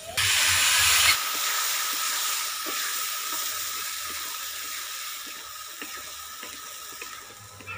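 Wet paste of green chilli, cashew and sour yogurt sizzling as it is poured into hot mustard oil in a wok with fried pointed gourds. The hiss starts suddenly and is loudest for about a second, then slowly dies away while a wooden spatula stirs with a few faint scrapes.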